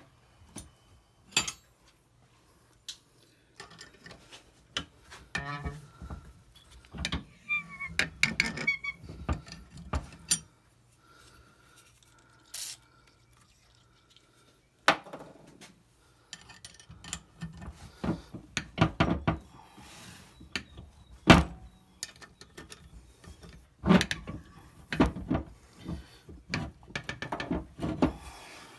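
Steel thread-repair tap being turned by hand with a wrench in a Ford 5.4L cylinder head's blown-out spark plug hole: irregular metal clicks and knocks from the wrench and tap, with brief squeaks as the tap cuts, and short pauses between strokes.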